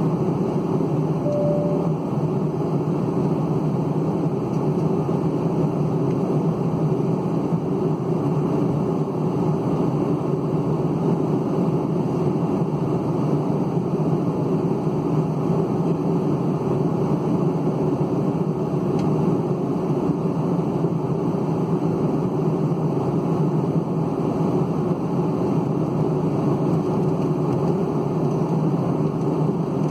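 Steady cabin noise inside a Boeing 757-200 in flight: the even rushing hum of the engines and airflow past the fuselage, heard from a window seat over the wing.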